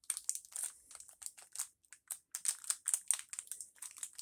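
Wrapping being crinkled and pulled off an action figure by hand: a rapid, irregular run of short crackles.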